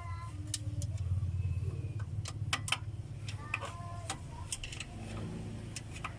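Suzuki F6A three-cylinder engine running with a steady low, rapidly pulsing hum, with scattered sharp metallic clicks and taps over it.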